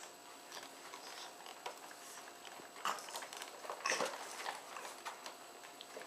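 Faint wet mouth clicks and smacks from a baby, with two louder clicks about three and four seconds in.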